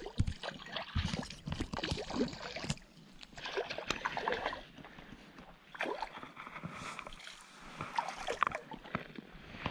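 A hooked bass thrashing and splashing at the water's surface as it is fought in close to shore, in a string of irregular splashes and sloshes.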